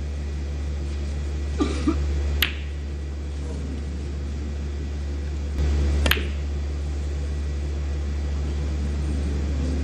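Snooker balls clicking on the table: a few sharp knocks, the loudest about two and a half seconds in and again about six seconds in, over a steady low hum.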